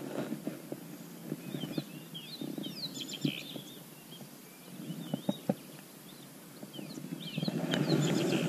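Small birds chirping in quick, twittering calls that come in a few bouts. Underneath is a low rumble with a few sharp knocks, louder near the end.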